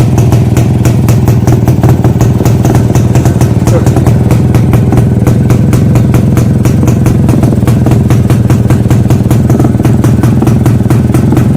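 Old Jawa motorcycle's two-stroke engine running steadily, with a rapid, even firing beat.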